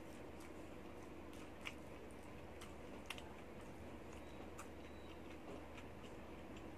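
Someone chewing crispy deep-fried enoki mushrooms: quiet chewing with a few sharp crunching clicks, the loudest about a second and a half and about three seconds in, over a low steady hum.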